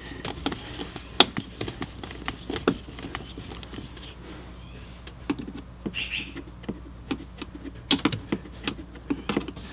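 Scattered light clicks and taps of a screwdriver and hands working at the screws of a minivan's blower motor under the dashboard, with a brief rustle about six seconds in.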